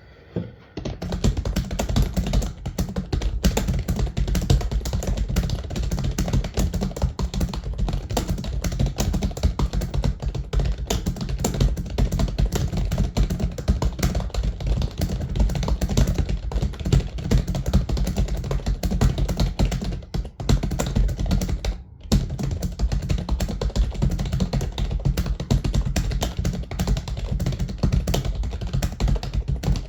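Computer keyboard typed on fast and without let-up, a dense stream of keystrokes at typing-test speed of about 100 words a minute. It starts about a second in, with two brief pauses about two-thirds of the way through.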